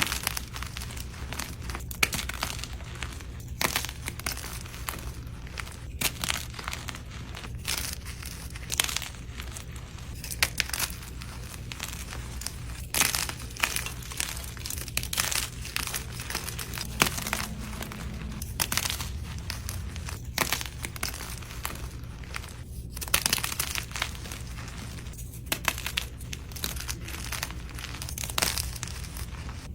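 Teal-dyed gym chalk being crushed, with irregular crunches and crackles as the dry, dusty blocks crumble, over a steady low hum.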